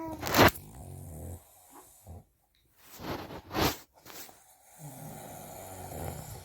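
A sleeping man snoring. Low buzzing snores near the start and again near the end, with loud, short breathy puffs between them.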